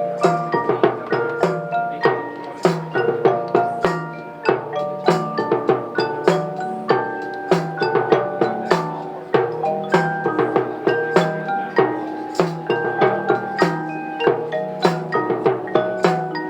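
Marching band front ensemble playing a mallet-percussion passage: many struck, ringing keyboard-percussion notes in a steady rhythm over a repeating low bass figure.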